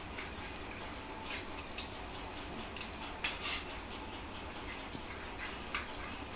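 Tailor's scissors cutting through a length of plain cloth: irregular sharp metallic snips as the blades close, loudest a little past three seconds in.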